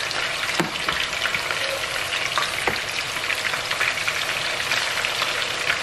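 Raw chicken pieces shallow-frying in hot oil in a nonstick frying pan: a steady sizzle full of fine crackles, with a few sharper clicks. This is the first fry of a double fry meant to make the chicken crispy.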